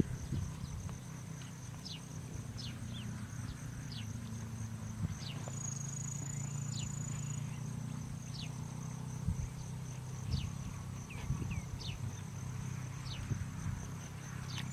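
Insects trilling in a steady high drone, with short falling chirps every second or so, over a steady low hum.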